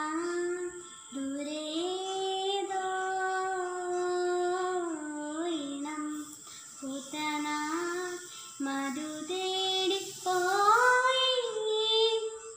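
A young girl singing a slow melody solo and unaccompanied, in phrases of long held notes that bend between pitches, with short pauses for breath; her voice climbs higher near the end.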